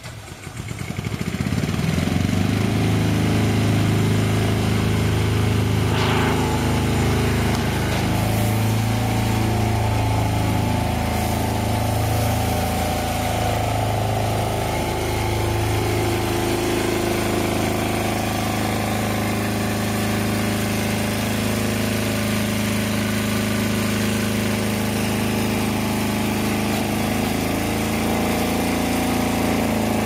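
The water-cart skid tanker's pump engine starts by remote control, coming up to speed within the first couple of seconds, then runs steadily.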